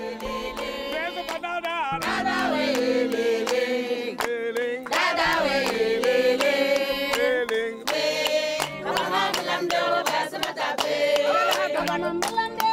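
A group of voices singing together over a steady held tone, with many irregular hand claps.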